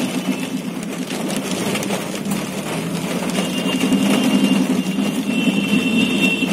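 Vehicle engine running steadily amid traffic noise, heard from inside the vehicle. A high steady tone joins about halfway through.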